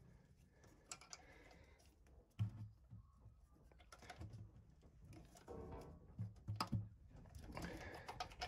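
Faint, scattered clicks and a few soft knocks of hand tools on metal, as a stuck piston in a V8 block is worked at through a screw jammed into its crown.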